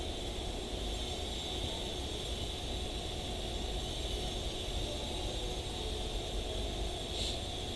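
Steady background noise, a low rumble with a hiss, with one brief high blip about seven seconds in.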